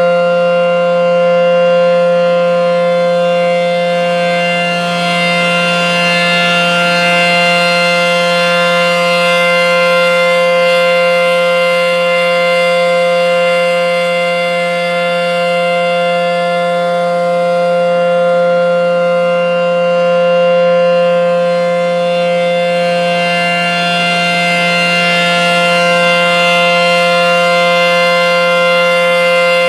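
ACA P-10 outdoor warning siren sounding a steady alert at full speed: a loud, unwavering chord of several pitches at once, swelling and fading slightly about every ten seconds.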